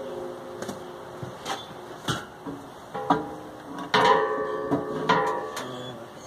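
Background acoustic guitar music: plucked notes and chords that ring and fade, with a strong strum about four seconds in and another a second later.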